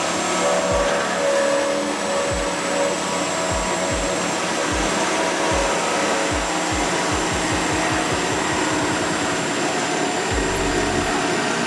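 Corded reciprocating saw with a Sabrecut Extreme metal-cutting blade running continuously as it cuts through the steel of a car's B-pillar, with irregular low knocks from the blade.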